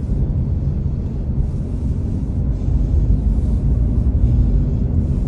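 Steady low rumble of a car being driven, road and engine noise heard inside the cabin.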